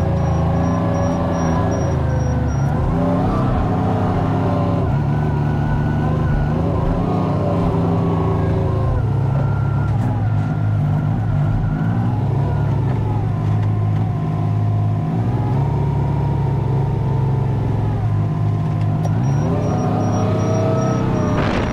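Kubota R430 compact wheel loader's diesel engine, heard from inside the cab, running and changing pitch as the throttle rises and falls, with a rev-up near the end.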